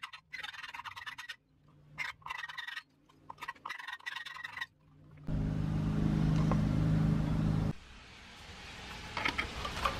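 Hand file rasping on a plastic casing hook of a Keurig K-Classic B40 coffee maker, in three short runs of quick strokes, taking material off the hook so the casing comes apart more easily. Then a louder steady low hum for about two and a half seconds, with a few faint clicks near the end.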